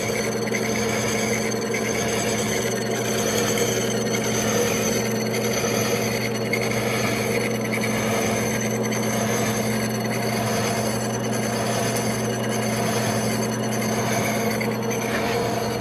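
Horizontal milling machine running, its two ganged slot cutters on the arbor cutting a six-spline shaft: a steady machine drone with a faint, slow, regular pulse.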